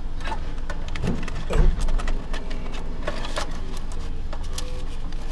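Clicks, knocks and rattles of hands working inside an open vending machine at its MEI bill acceptor, with a heavier thump about a second and a half in, over a steady low hum.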